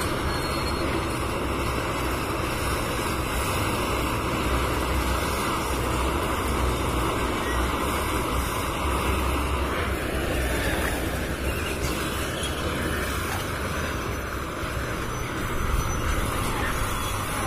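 Steady wind rumbling on the microphone, a low buffeting with a hiss above it.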